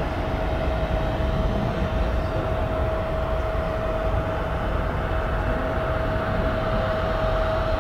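Jet airliner engines running steadily: a constant whine over a low rumble.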